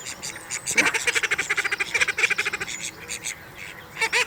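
Ducks quacking in fast runs of short calls, many to the second, easing off near the end. It is an agitated exchange as one duck drives another off.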